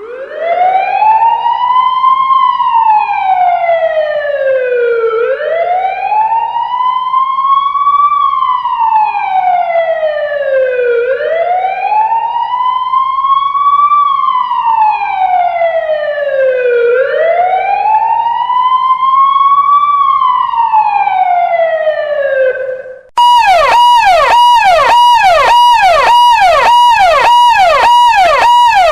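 Emergency-vehicle siren sounding a slow wail, its pitch rising and falling about once every six seconds, four times over. About 23 seconds in it cuts to a different, brighter siren on a rapid yelp of about two and a half cycles a second.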